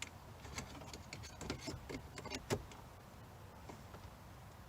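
Small clicks and taps of a hand tool working at a metal retainer clip on a plastic vacuum switch, a scatter of them in the first half, the sharpest about two and a half seconds in.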